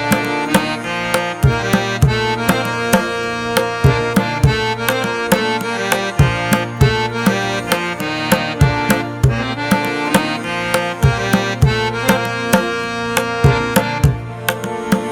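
Instrumental background music: sustained melodic tones over a steady drum beat of about two strokes a second.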